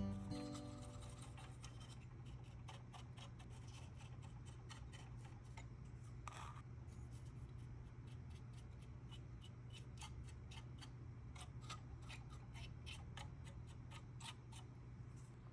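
A stiff paintbrush dabbing and scraping weathering mix onto a plastic scale-model tank's suspension: faint, irregular ticks and scratches, several a second, with a slightly longer scrape about six seconds in, over a low steady hum.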